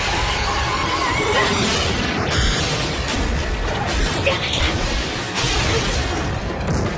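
Action-cartoon fight soundtrack: dramatic music mixed with crash and impact sound effects, running loud throughout.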